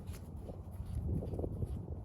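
Wind buffeting the microphone in a steady low rumble, with a few soft rustles.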